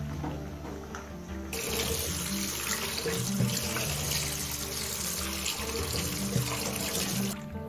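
Kitchen tap running cold water over boiled pasta to rinse it; the water comes on about a second and a half in and shuts off just before the end. Background music plays underneath.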